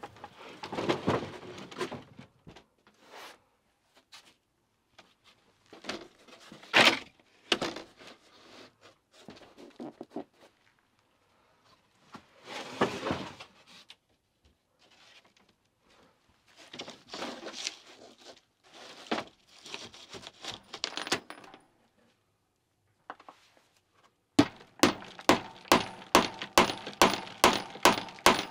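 Irregular knocking and clattering of wood and tools being handled, then, from about 24 seconds in, steady hammer blows, about two to three a second, each with a short ring.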